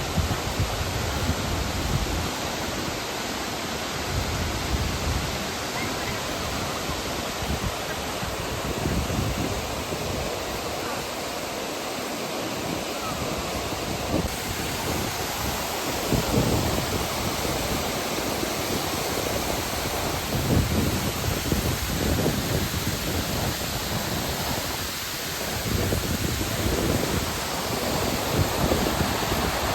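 Steady rushing of a large waterfall, Aber Falls, with gusts of wind buffeting the microphone every few seconds.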